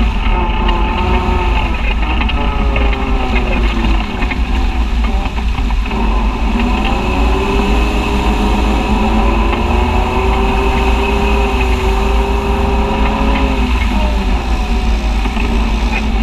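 Side-by-side UTV engine running as the vehicle drives along, its pitch dropping about four seconds in, climbing again after six seconds, and dipping once more near the end as the throttle changes. A heavy low wind rumble on the mounted microphone runs underneath.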